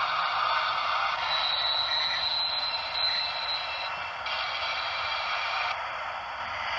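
Model steam locomotive running slowly past with a train of tank wagons: an even hiss with no bass, as from a small speaker or running gear, with a thin high steady whine for about two and a half seconds partway through.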